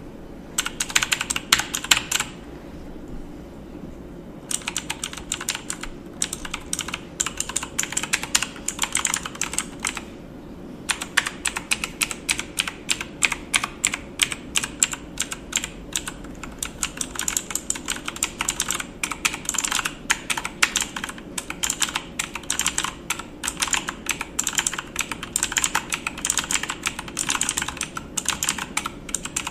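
Computer keyboard typing: fast runs of key clicks, pausing briefly about two seconds in and again about ten seconds in, then going on almost without a break.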